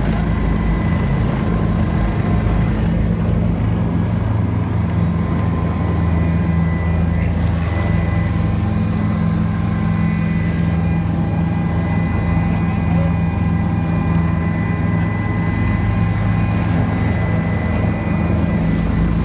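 Helicopter engine and rotor running, heard from inside the cabin: a loud, steady drone with a steady high whine over it.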